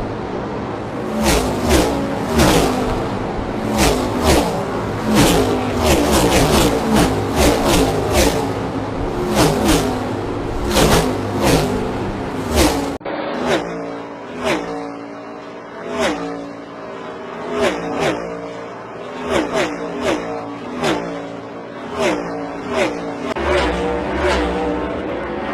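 NASCAR Next Gen stock cars' V8 engines at racing speed, a pack going by in quick succession, each car's note dropping in pitch as it passes. About halfway the sound cuts abruptly to a duller recording in which cars keep passing, further apart.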